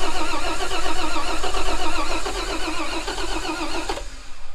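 The 1949 White Super tow truck's engine cranking over on its starter in an attempt to start it after long sitting, with fuel poured down the carburetor. The cranking goes on with an even rhythm and stops about four seconds in.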